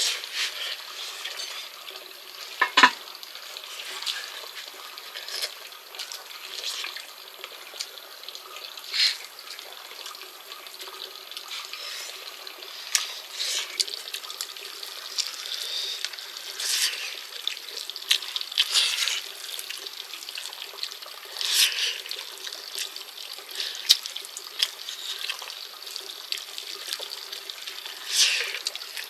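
Water splashing and trickling, with scattered sharp clicks and knocks. One louder knock comes about three seconds in.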